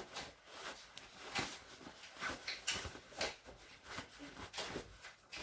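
Cloth trousers being folded and tucked by hand on a tabletop: a series of short, irregular fabric rustles and brushes.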